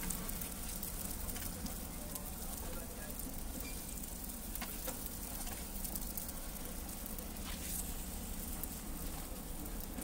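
Steady frying sizzle from a street-stall griddle cooking green onion cakes, over a low steady hum, with a few faint ticks.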